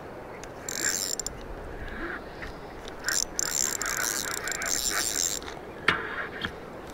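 Samolla 6000 baitrunner spinning reel being cranked in two spells, its gears whirring with a fine clicking, as the rig is wound up toward the rod tip before a cast. A single sharp click comes near the end.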